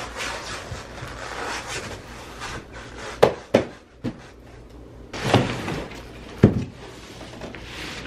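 A large cardboard box being handled and unpacked, with scraping and rustling, two sharp knocks a little after three seconds in, and a heavier thump later on.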